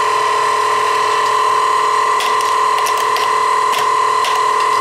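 1990s Kenmore sewing machine's motor running at a constant speed with a steady, even whine, its foot pedal wedged down; the motor turns but the machine does nothing, a fault the owner puts down to a failed gearbox. Several light clicks from about two seconds in as the knobs are turned.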